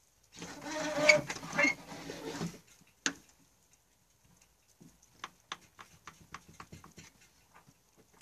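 A person's voice making a drawn-out wordless vocal sound lasting about two seconds. Then comes one sharp click, followed by a run of faint irregular clicks or taps, several a second.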